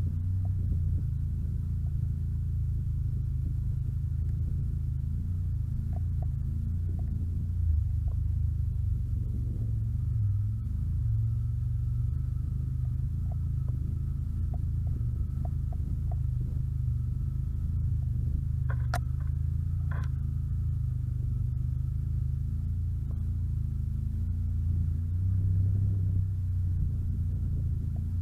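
ATV engine running steadily during a ride, a low, even drone that shifts slightly in pitch. Two short clicks or knocks come about two-thirds of the way through.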